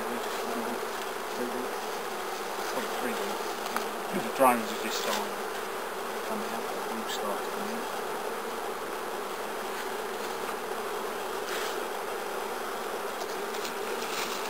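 Honeybees buzzing around a hive: a steady hum with single bees flying close by, briefly louder about four seconds in.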